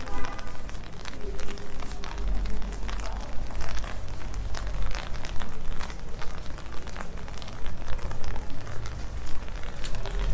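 Rain pattering on a city street, a dense, irregular crackle of drops over a low rumble.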